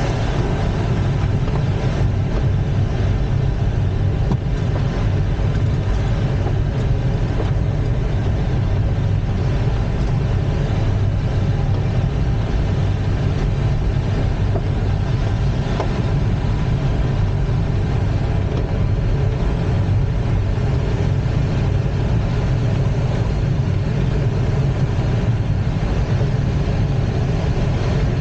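Steady rush of airflow around the cockpit of an ASK-21 glider in free gliding flight, a low rumble with an even hiss above it.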